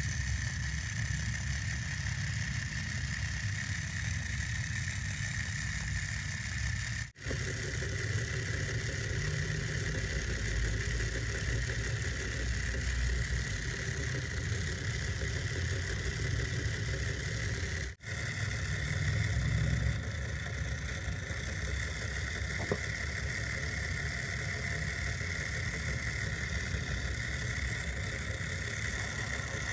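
Small electric motor of a homemade miniature wet grinder running steadily, turning its metal drum and grinding stone through a white paste, with a steady high whine over a low rumble. The sound drops out briefly twice.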